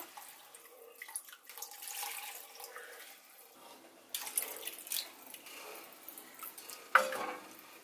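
Cornflour slurry pouring and splashing into sugar syrup in a pot while a wooden spoon stirs it, with small scattered ticks and one sharp knock near the end.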